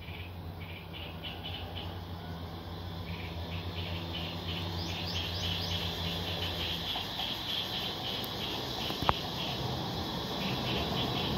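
Birds chirping in quick repeated bursts, with a few short rising calls about five seconds in, over a low steady hum and a background rumble that grows slowly louder as a distant train approaches. A single sharp click about nine seconds in.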